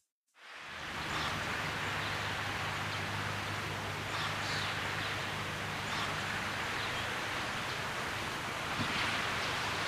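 Outdoor city-park ambience: a steady even hiss with a low steady hum underneath and a few faint high chirps. It starts about half a second in, after a moment of silence.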